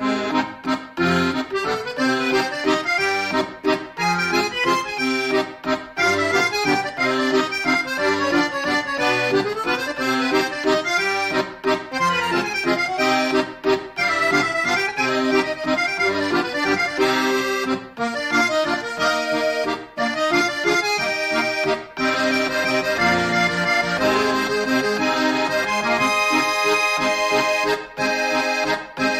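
Instrumental background music with a quick, busy melody.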